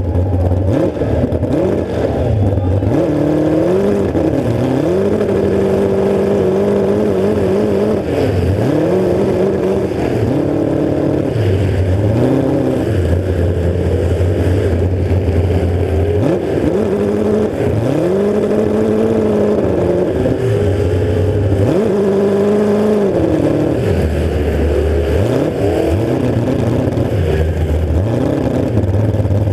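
Demolition derby car's engine, exhausting through open header stacks, revved up and held, then dropped back to a low idle, over and over.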